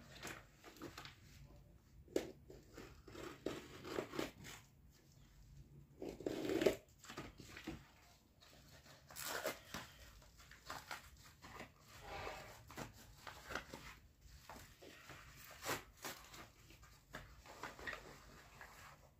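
A yellow padded mailer envelope being torn open and handled: irregular rustling, crinkling and tearing of paper and plastic packaging, in short uneven spells with brief pauses between.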